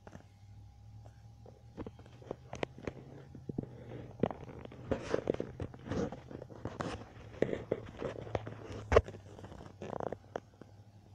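Irregular close clicks, crackles and rustling, thickest in the middle, with one sharp knock about nine seconds in, over a steady low hum.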